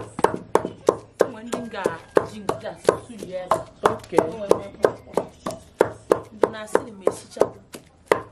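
Pestle pounding cooked egusi (melon seed) lumps in a mortar, a steady run of dull thuds about three a second.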